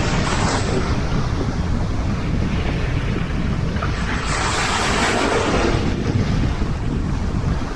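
Sea waves breaking and washing in, with a swell of surf about halfway through, over a steady low rumble of wind buffeting the microphone.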